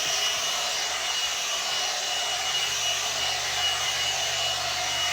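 One-step hot-air hair dryer brush running steadily: an even rush of blown air with a thin, high steady whine from its motor.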